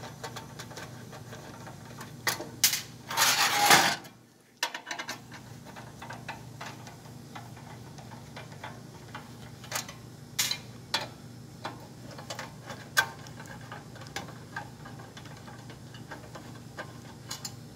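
A screwdriver backing screws out of a gas burner manifold, with scattered small metal clicks and taps as screws and parts are handled on a metal workbench. There is a louder scraping stretch about three seconds in, over a steady low hum.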